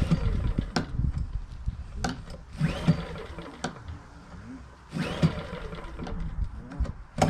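Craftsman 2200i inverter generator's small gasoline engine being pull-started on its first start from cold: the recoil starter cord is yanked several times, about every two seconds, each pull a short whirring rattle as the engine turns over without catching.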